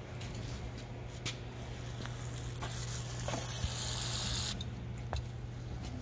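Aerosol cleaner sprayed from a can through a straw nozzle in one hissing burst of nearly two seconds, cleaning a pump's mechanical seal face. A steady low hum runs underneath, with a few faint clicks.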